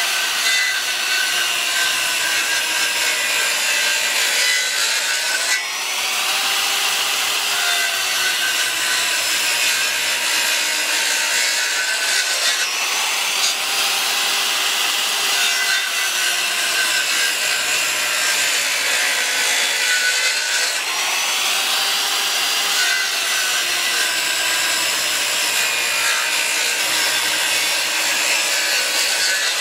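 Corded circular saw running and cutting into a 6x6 pressure-treated post, making repeated kerf cuts to notch it. The motor's pitch sags under load and recovers several times as each pass is made.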